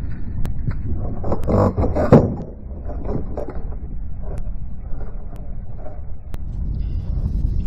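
Wind buffeting the microphone as a steady low rumble, with a brief loud scuffing burst about two seconds in.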